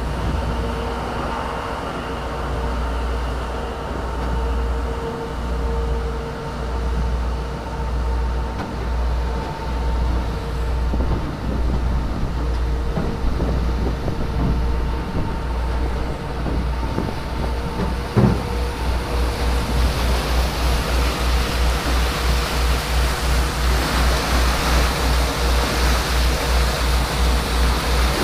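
A small workboat's engine running on board while it pushes through harbour ice, with a low throbbing and a steady whine. A single knock comes about two-thirds of the way through, and the hiss of churning wake water and ice slush grows louder towards the end.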